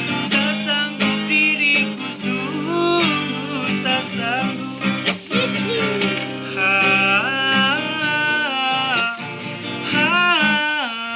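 A solo singer's voice with acoustic guitar accompaniment, the voice sliding between notes and holding long phrases.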